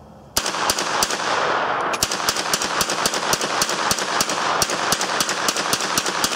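A 9mm AR-pattern short-barreled rifle fired semi-automatically without a suppressor: three spaced shots, a short pause of about a second, then a fast string of shots at about four a second, each followed by a long echo.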